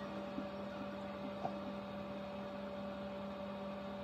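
Steady electrical hum, with two faint clicks about half a second and a second and a half in.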